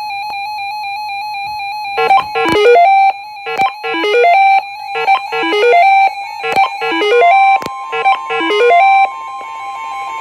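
Several weather alert radios sounding their alarms together: a steady warbling electronic beep tone, joined about two seconds in by a repeating electronic tune of falling notes that stops near the end. A steady single alarm tone comes in about seven seconds in, typical of the NOAA Weather Radio 1050 Hz warning alert, with sharp clicks about once a second throughout.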